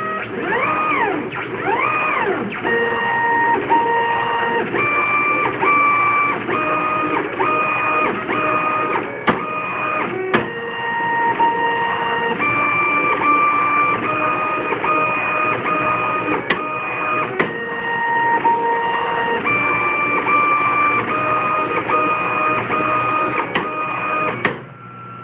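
Ultimaker 3D printer's X and Y stepper motors driving the print head in fast back-and-forth diagonal moves. Each move sings as a whine: at first a quick rising-then-falling glide, then a rise to a steady tone held for under a second before falling again, at different pitches from move to move. A few sharp clicks come in the middle; the uploader suspects missed steps but is not sure. The motors fall quiet near the end.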